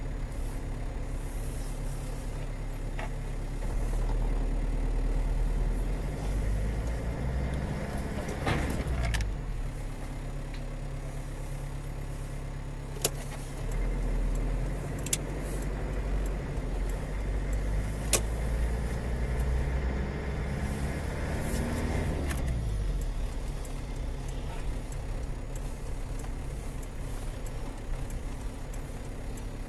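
Car engine and road noise heard from inside the cabin while driving. The engine pitch sweeps up and down twice as the car changes speed, and there are a few sharp clicks.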